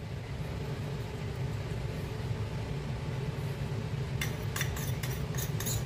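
Steady low background hum, with a few light clicks and taps about four seconds in and again near the end.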